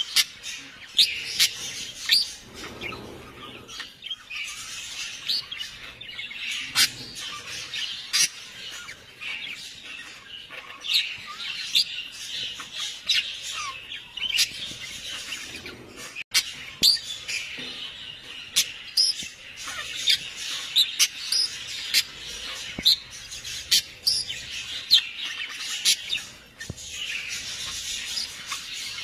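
Many small birds chirping together: a continuous chatter dotted with frequent short, sharp calls.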